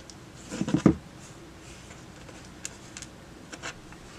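Small handling noises of a fuse being taken apart by hand: a short scrape about half a second in, then a few light clicks.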